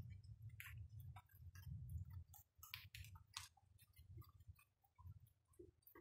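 Faint rain dripping: irregular small drips and taps at uneven intervals over a soft low rumble.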